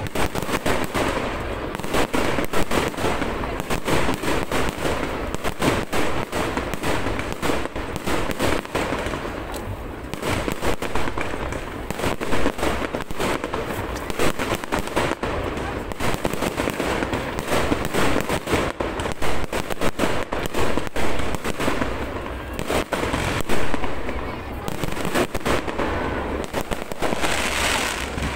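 Aerial fireworks display: shell bursts and crackling stars going off in rapid succession, many bangs a second without a break.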